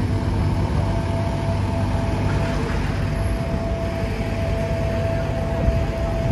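Downtown street traffic: motor vehicle engines running with a steady low rumble, and a thin steady whine held from about a second in.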